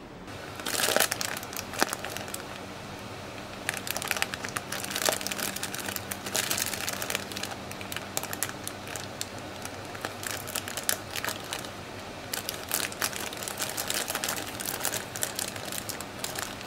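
Clear plastic bag of a McDonald's Happy Meal toy crinkling as hands squeeze and work it open: a busy, irregular crackling that comes and goes, thickest about four to seven seconds in and again in the last few seconds.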